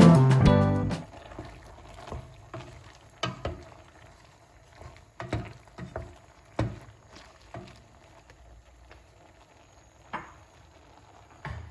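Background guitar music fading out in the first second, then a series of separate light knocks and clicks, irregularly spaced, the loudest about six and a half seconds in.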